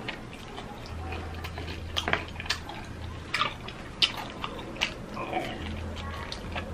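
Crispy fried chicken being bitten and chewed close to the microphone, the breading crackling in a series of sharp crunches.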